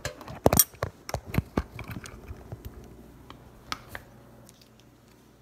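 Handling noise from a phone being picked up and moved by hand: a quick run of knocks and rubbing on its microphone, loudest in the first two seconds, with one more knock near four seconds.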